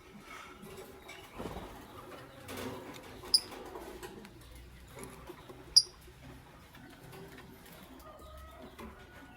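Lovebirds giving two short, sharp high chirps about two and a half seconds apart, over faint rustling.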